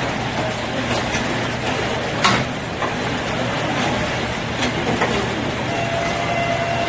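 Produce bundle-tying machine running steadily, with a sharp clack about a second in, a louder one a little past two seconds, and more around four and five seconds.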